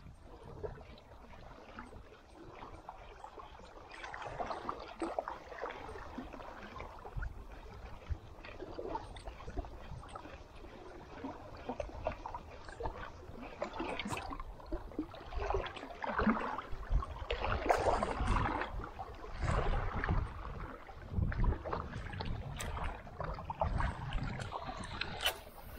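Water splashing and lapping against the side of a small inflatable boat, with wind rumbling on the microphone. The splashing comes in uneven bursts and grows louder in the second half.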